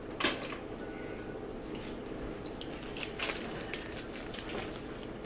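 Bag of powdered sugar being cut open and handled: scattered crinkles and clicks, the sharpest about a quarter second in and around three seconds in.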